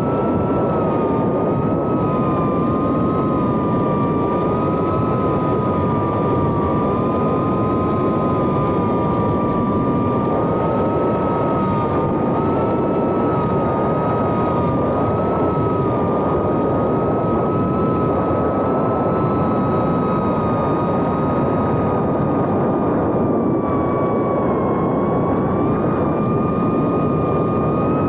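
2.5-inch FPV whoop quadcopter in flight: its Happymodel 1404 3500kv brushless motors and propellers whine steadily, the pitch wavering slightly as the throttle shifts, over a steady rushing noise.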